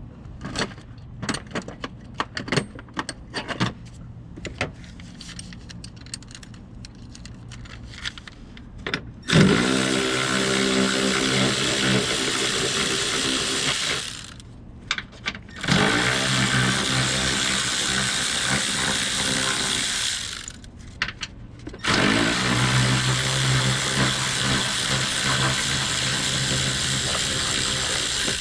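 Light clicks and taps of tools on metal, then a power tool's motor running in three long steady runs of about five seconds each, starting about nine seconds in, as bracket bolts are spun out.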